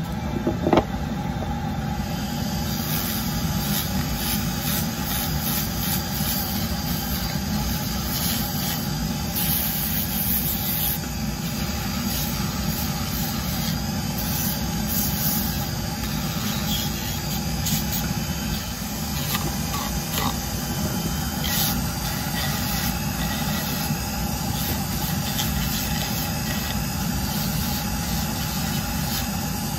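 Rotary tool spinning a homemade flap sander against the old wooden handle of a hand saw, sanding into its rounded cut-outs: a steady motor whine with short scratchy bursts where the abrasive flaps bite the wood.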